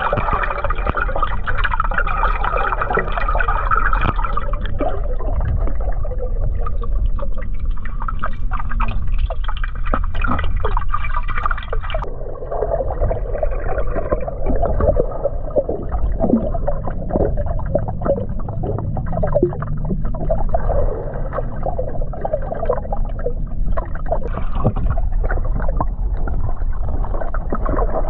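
Water heard through an underwater microphone as a swimmer moves: muffled bubbling and gurgling with many small clicks over a steady low rumble. A higher hiss drops away about twelve seconds in.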